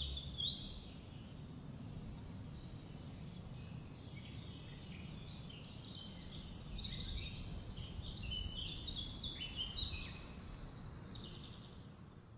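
Small birds chirping and singing in short high notes, busier in the second half, over a steady low rumble of background noise.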